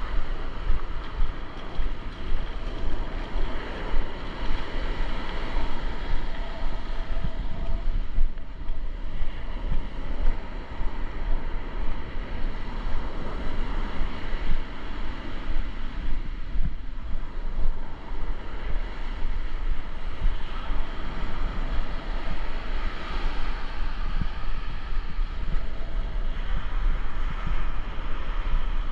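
Wind buffeting the microphone in uneven gusts, with ocean surf washing onto the beach behind it.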